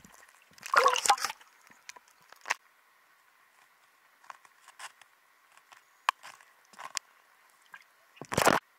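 Irregular knocks and scrapes heard underwater through a camera housing as trout swim against and brush past it, the loudest about a second in and again near the end, with scattered small clicks between.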